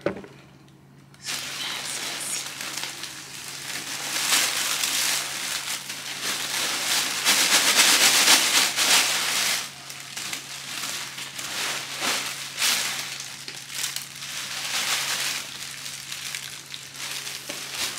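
Thin plastic shopping bags crinkling and rustling as loose cash is poured and shaken from two bags into a bigger one. It starts about a second in and is loudest in the middle.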